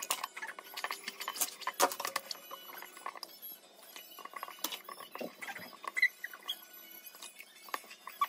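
A metal fork clinking and scraping irregularly against a ceramic bowl as a runny pancake batter is stirred, with milk being poured in partway through.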